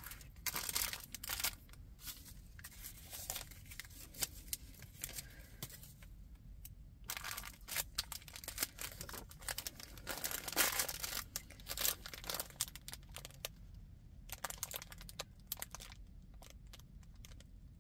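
Crinkly packaging of a diamond painting kit being handled: irregular bursts of crackling and rustling with short pauses between them, loudest about ten seconds in.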